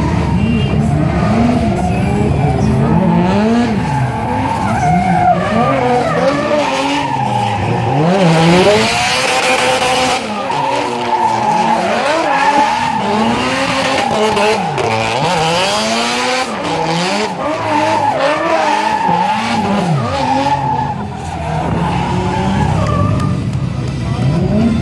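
Drift car sliding past under power: the engine revs rise and fall again and again as the driver works the throttle, over the hiss and squeal of the rear tyres skidding and smoking. The tyre noise swells loudest about a third of the way in and again past the middle.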